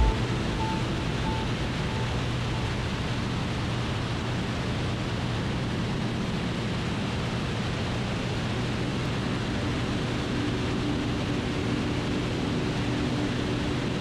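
Cessna 185 floatplane's six-cylinder piston engine and propeller running steadily in cruise, a constant hum under heavy rushing noise, heard from inside the cabin. A short bump right at the start.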